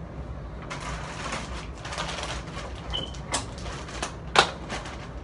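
A plastic bag rustling and crinkling as it is handled, starting about a second in, with two sharp snaps later on, the second the loudest, over a low steady hum.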